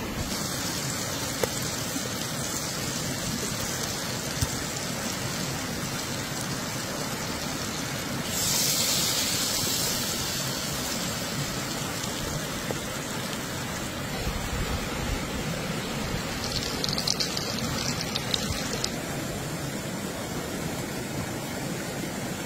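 Butter and oil sizzling in a cast-iron skillet over a campfire: a steady hiss with fine crackle. About eight seconds in it swells into a louder, brighter sizzle for a second or two, as when a ball of dough goes into the hot fat.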